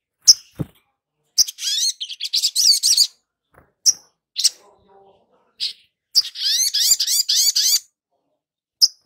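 Olive-backed sunbird singing: sharp high chirps between two fast twittering phrases of quick rising notes. There is a single low thump just after the start.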